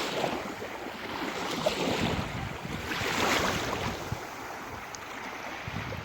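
Sea waves washing in at the shoreline, swelling twice, with wind on the microphone.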